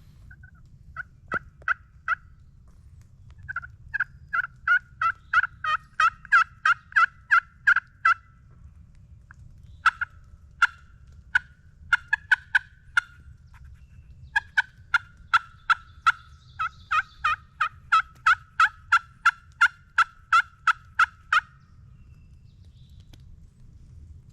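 Turkey yelps played on a hunter's turkey call to strike up a gobbler: runs of loud, sharp, evenly spaced notes, about three a second. A short series near the start, a long run, a few scattered notes, then a second long run that stops a few seconds before the end.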